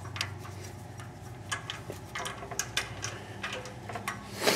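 Scattered light clicks and knocks from handling a Caterpillar LP forklift whose engine is not yet running, over a faint steady hum, with a louder knock near the end.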